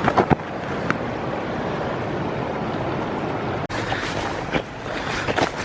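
Steady rushing of flowing creek water, with a few short sharp sounds right at the start and a brief dropout a little over halfway through.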